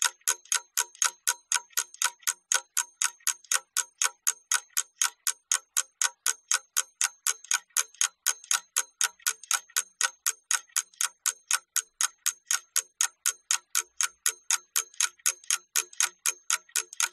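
Clock-ticking sound effect, a fast, even tick-tock at about four ticks a second, used as a timer for the time given to do an exercise.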